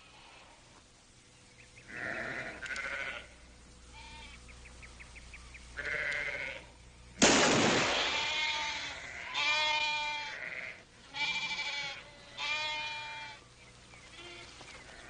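Sheep bleating several times in long, wavering calls. A sudden loud bang about seven seconds in is the loudest sound.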